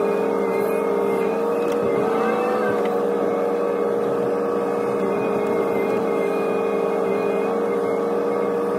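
Hitachi ZX125W wheeled excavator running, heard from inside the cab: a steady engine and hydraulic whine that wavers slightly in pitch about two seconds in.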